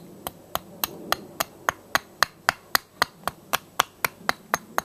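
Small hatchet chopping at a split section of log in quick, even strokes, about four sharp knocks a second, trimming the wood into shape.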